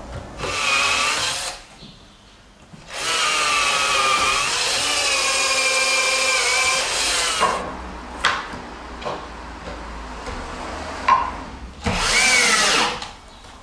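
Electric drill running in three runs, a short one, a long one of about four seconds and a short one near the end, its pitch shifting as the motor speeds up and slows down: drilling pilot holes in wood and driving screws to fix a hinge. A few short knocks fall between the runs.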